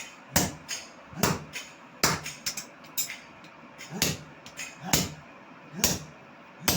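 Blacksmith's hammer striking an axe head on an anvil: about eight heavy blows a little under a second apart, with lighter taps between them.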